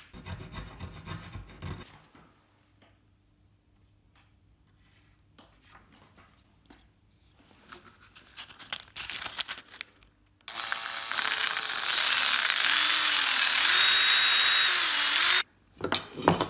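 Small wooden parts being handled and rubbed on a workbench, then a small power tool runs on wood for about five seconds, its motor pitch dipping and recovering several times before it cuts off suddenly. A few knocks follow near the end as a piece is set in a clamp.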